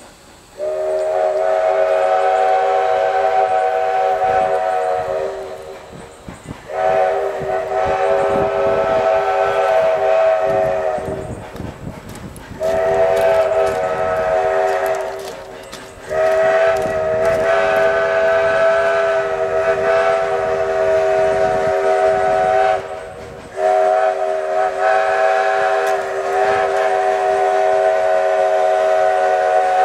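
Steam locomotive whistle on a 2-8-0 blowing five long blasts, each a steady chord of several notes, separated by short gaps.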